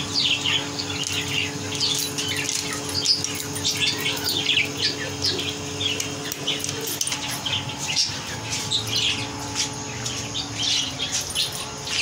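Many small aviary birds chirping together in a dense, continuous stream of short, high calls.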